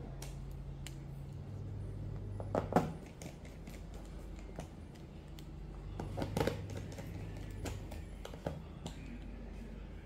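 Sharp plastic clicks and knocks as the laptop's plastic bottom cover is pressed down by hand and snapped into place around its edges. The loudest come in a cluster a few seconds in and again around the middle, over a steady low hum.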